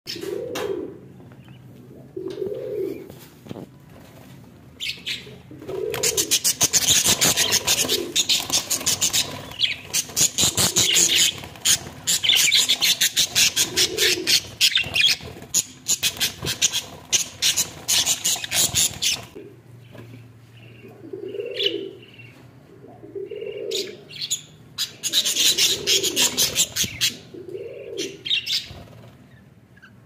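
Budgerigar chicks chirping in long spells of rapid, scratchy calls. Short low coos repeat in the background.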